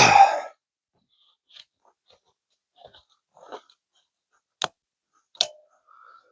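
Gear being handled: faint scrapes and rustles, then two sharp clicks under a second apart as the quick-release belt attachment and its spacers are worked on the belt.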